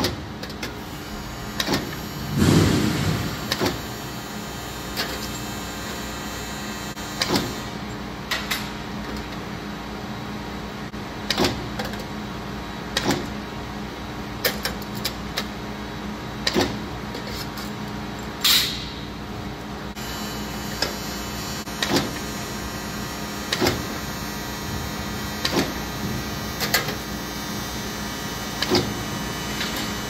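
Powered sheet-metal striking press, its ram knocking bend lines into a galvanized square-to-round duct transition: a sharp metallic knock every second or two, irregularly spaced, over the machine's steady motor hum.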